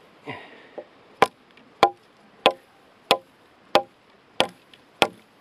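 Aitor Oso Blanco sawback knife chopping into a firm branch: after a brief rustle, seven sharp blade strikes in an even rhythm, about one every two-thirds of a second, starting about a second in.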